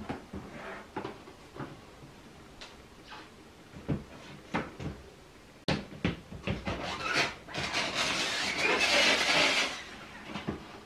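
Clear plastic snake-rack tubs knocking and tapping as they are handled, then a tub sliding into its ALU rack shelf with a loud scraping rub near the end. New tubs always make that noise until they wear in.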